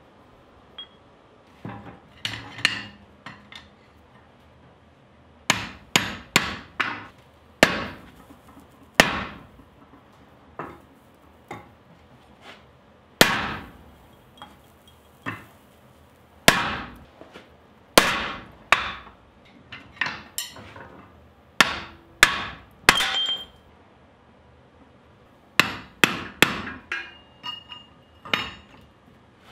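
Hammer blows driving a hand-held punch into a glowing hot steel bar laid over a swage block. The blows are sharp and come in uneven groups of two to four, with short pauses between groups.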